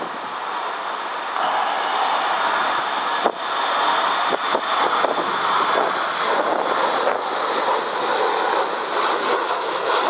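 Twin jet engines of a Boeing 737 at go-around thrust as it climbs away overhead after an aborted crosswind landing: a steady rushing jet noise with a high whine on top, growing louder about a second and a half in.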